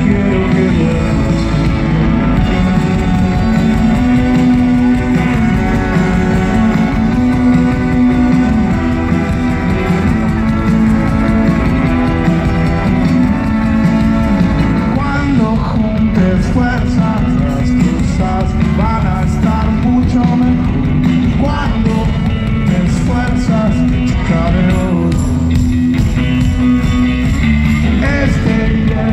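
A rock band playing live through a large festival PA, with electric guitars, bass and drums, heard loud and steady from among the crowd.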